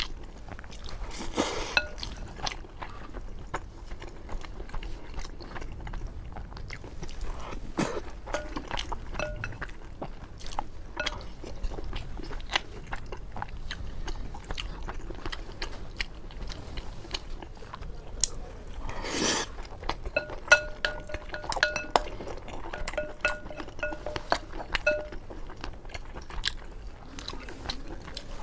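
A person chewing and biting mouthfuls of braised pork over rice, close to the microphone, with scattered clicks and clinks of a utensil against the bowl.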